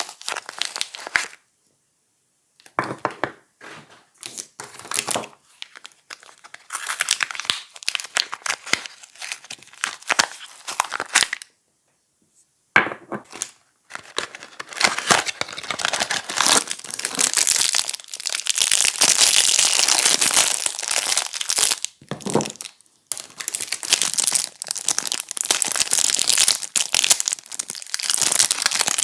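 Soap packaging being torn open and crumpled by hand, in irregular stretches of crinkling with short pauses.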